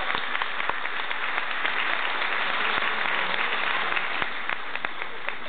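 Audience applauding, thinning out to scattered individual claps near the end.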